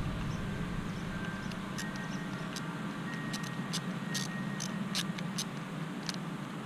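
Small, light clicks and ticks of a screw, nut and C-clip being fitted together on a plastic knife sheath, held with a screwdriver while the nut is worked onto the screw, over steady low background noise. The clicks come in irregular clusters, most of them in the middle of the stretch.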